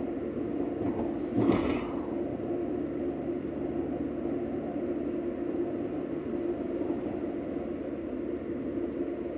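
Car cabin noise while driving: a steady low drone of engine and tyres on the road, with one short thump about one and a half seconds in.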